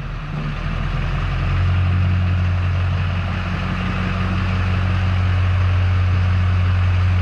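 LB7 Duramax 6.6-litre V8 turbo-diesel running at low speed as the truck creeps a short distance. Its steady low drone grows louder about a second and a half in.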